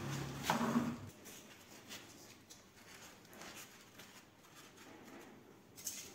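Cardboard box being handled and shifted on a hard floor: a loud rustling scrape about half a second in, then faint scattered taps and scrapes. A low hum stops about a second in.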